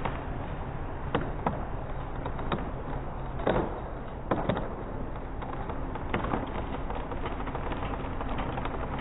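A series of sharp cracks and knocks, irregularly spaced and loudest about three and a half seconds in, over a steady low engine hum.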